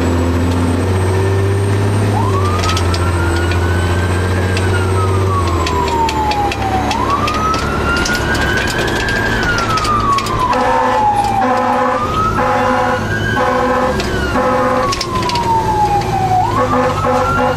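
Fire engine's siren wailing, heard from inside the cab, rising and falling slowly about four times over the truck's engine drone. From about ten seconds in, short repeated horn blasts sound over the wail.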